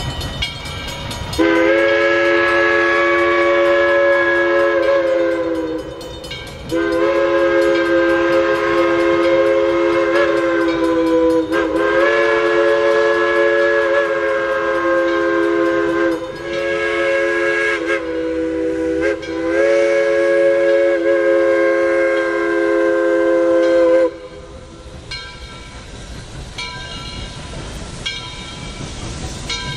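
Southern Railway No. 630's chime steam whistle sounding a series of long blasts with a couple of shorter ones, a chord of several tones held together, blown for a road crossing. The whistle stops about 24 seconds in, leaving the quieter sound of the distant approaching train.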